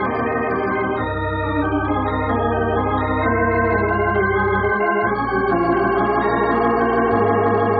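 Organ music bridge: sustained organ chords over a held bass note that changes a few times, the cue that marks a scene change in an old-time radio drama.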